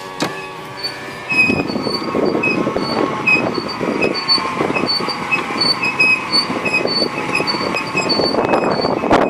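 Brake pad squeaking against the brake disc in short high-pitched chirps, about two a second, over the rumble of the car rolling. The squeal comes from a ridge worn into the pad rubbing in a circular groove worn into the disc.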